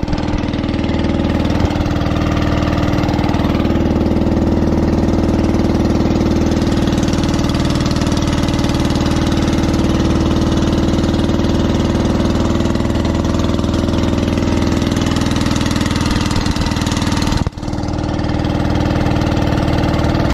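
Engine of a motorized outrigger boat (bangka) running at a steady, unchanging speed while the boat is underway. The sound drops out for an instant about three-quarters of the way through.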